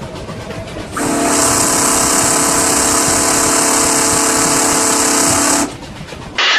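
A train sounds one long, steady horn blast of about four and a half seconds, with a strong hiss, over the rumble of the running train. Just before the end a different, higher screech starts abruptly.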